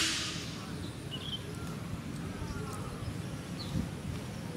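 Rural outdoor ambience: a steady low rumble with a few faint bird chirps. A short hiss right at the start fades within about half a second.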